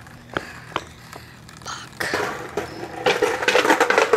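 Skateboard wheels rolling on rough concrete, a gritty rumble that builds from about two seconds in and is loudest near the end. Before it come two sharp clicks within the first second, about half a second apart.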